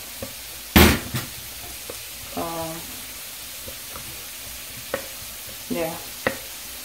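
A spatula stirring instant noodles in a stainless steel saucepan, with light taps against the pot and one sharp clank about a second in, over a steady sizzle of onions and carrots frying in the pan beside it.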